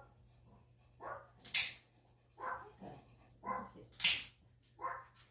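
Large dog whimpering in several short cries while its nails are clipped, with three sharp, loud snaps among them.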